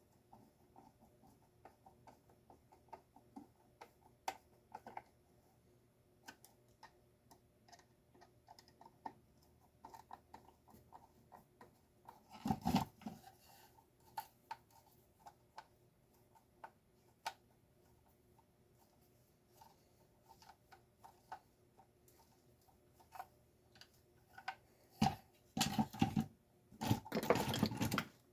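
Scattered small clicks and rattles of plastic and metal parts being handled while a Stanley garage door opener is taken apart, with a louder clatter about halfway through and a cluster of clattering near the end.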